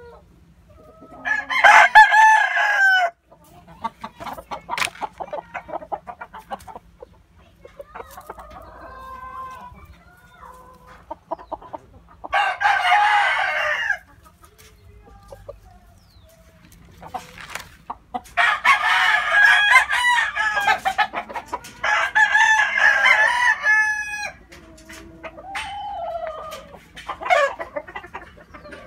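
Gamefowl roosters crowing, four loud crows of about two seconds each spread through the stretch, with softer clucking calls between them.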